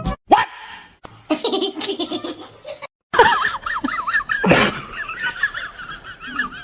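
Laughter in several short bursts separated by abrupt cuts, the last stretch high-pitched and rapidly wavering.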